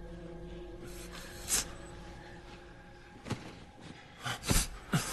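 Film soundtrack: a low, steady droning tone with a few sharp hits, spaced out at first and coming closer together near the end.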